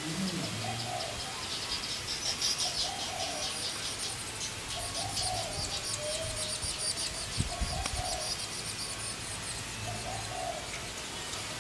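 Weaver birds chattering in fast, scratchy runs, with a dove cooing a low repeated note every second or two.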